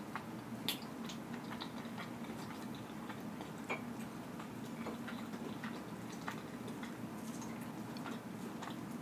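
Quiet eating sounds: soft chewing with scattered small clicks and taps of a metal fork against the bowl, over a steady low hum.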